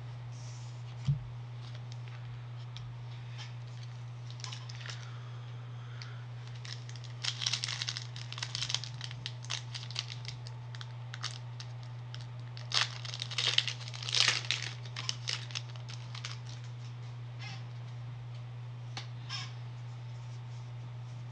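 Foil wrapper of a Pokémon booster pack crinkling and tearing as it is handled and opened, in two spells of crackly rustling, over a steady low hum. A single thump about a second in.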